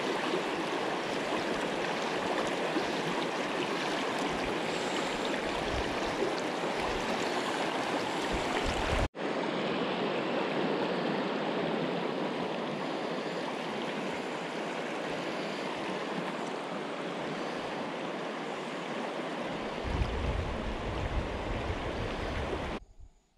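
River rapids: fast water rushing steadily over stones, with a momentary break about nine seconds in. A low rumble joins near the end, and the rushing drops away just before the end.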